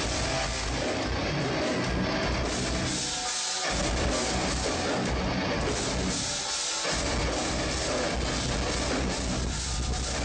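Metalcore band playing live at loud volume, with heavy drums and dense rock instrumentation. The low end drops out briefly twice, about three seconds and six and a half seconds in.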